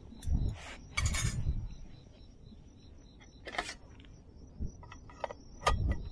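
Metal camping cookware clinking and knocking in a few separate bursts as a lid is handled and set onto a frying pan on a gas-canister stove.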